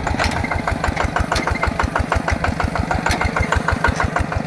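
A small tractor's single-cylinder diesel engine running steadily with an even, rapid chuffing beat of about eight or nine pulses a second. A few sharp clicks are heard over it.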